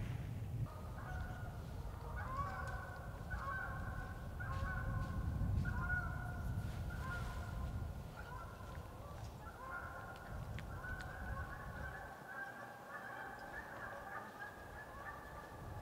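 A flock of geese honking over and over, many calls overlapping, beginning about a second in. Wind rumbles on the microphone underneath.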